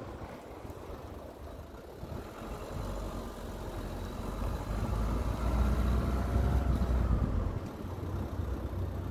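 Road noise of a Citroën C4 Grand Picasso on the move, heard just outside the front wheel: the soundproofed tyre rolling on asphalt, with engine and wind behind it. The low rumble builds about a third of the way in and eases off near the end.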